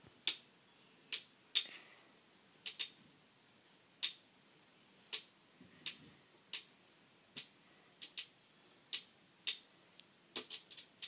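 Two spinning Beyblade tops knocking against each other in a plastic stadium: sharp clinks at uneven spacing, roughly one a second, with a quick flurry of several near the end.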